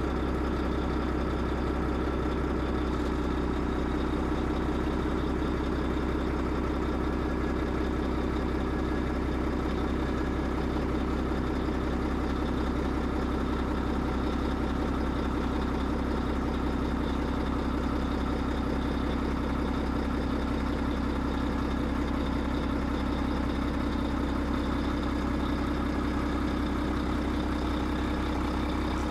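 Wheel loader's diesel engine running steadily at low revs, with an even, unchanging drone.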